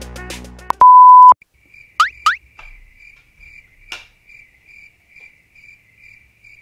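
Added sound effects: a loud, steady beep lasting about half a second, then two quick rising whistle glides and a single click. Under them runs a faint cricket-chirp effect at one pitch, about three chirps a second, the gag for an awkward silence.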